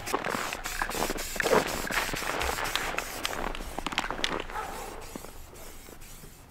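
Aerosol spray-paint can hissing in spurts, with scattered clicks and scuffs, fading out after about four and a half seconds.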